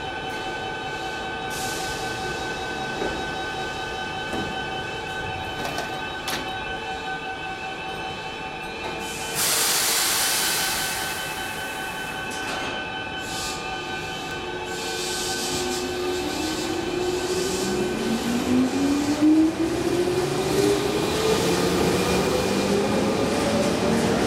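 Keihan 8000-series electric train standing at an underground platform, with a steady electrical hum and a loud burst of air hiss about ten seconds in. It then departs: its inverter-driven traction motors give a whine that climbs steadily in pitch over the last several seconds as the train accelerates.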